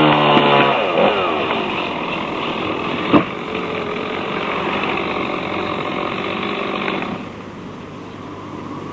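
An engine running: a steady pitched note at first that gives way to a rougher running noise about a second in, with a sharp knock about three seconds in and a drop in level about seven seconds in.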